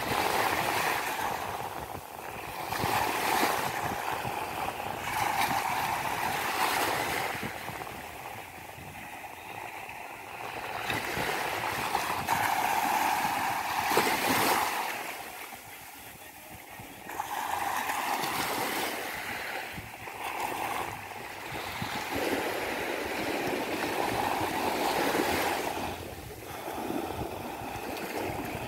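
Sea waves surging in and washing back, the rushing surf swelling and easing every few seconds.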